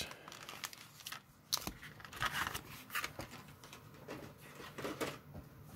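Stiff clear plastic blister packaging being handled, with a few scattered faint crinkles and sharp clicks.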